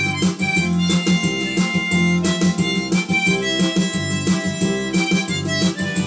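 Background music: a melody of held notes over a rhythmic plucked accompaniment.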